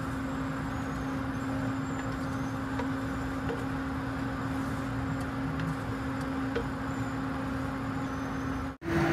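A steady hum with hiss runs throughout, with faint scraping ticks of a wooden spatula stirring dry sesame seeds in a nonstick pan. Near the end the sound cuts out for an instant and comes back louder, with a higher hum.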